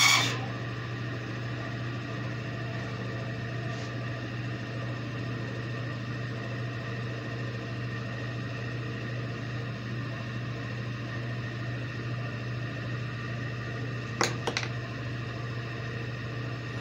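Steady hum of woodshop machine motors running with no wood being cut. Two sharp clicks come close together about fourteen seconds in.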